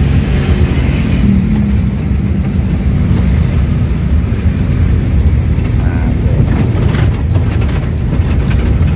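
Engine and road noise inside a moving angkot minibus: a steady low rumble.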